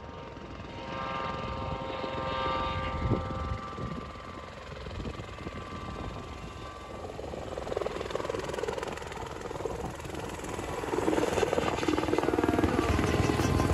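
Light helicopter approaching to land, its turbine and rotor sound growing louder over the last few seconds as it comes close, with the beat of the rotor blades coming through near the end.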